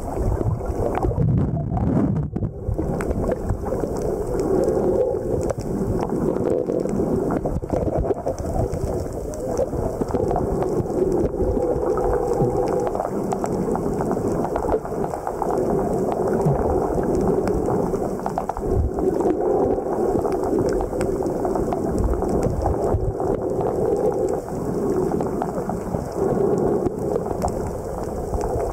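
Underwater ambience picked up by a submerged camera: a steady, muffled rumble of moving water, with faint clicks scattered through it.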